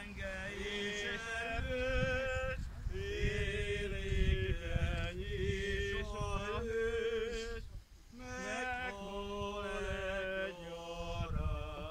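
Unaccompanied male voice singing a slow funeral liturgical chant, with long held notes joined by glides and a short break about eight seconds in.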